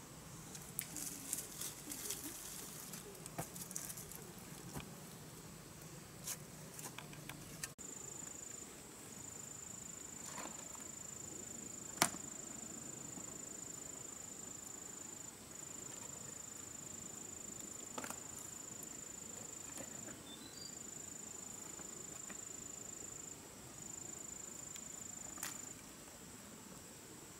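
Rustling, crunching steps in dry leaf litter for the first several seconds, then a faint, high, steady insect drone that breaks off briefly a few times. A few sharp wooden knocks of poles being handled and stepped on, the loudest about halfway through.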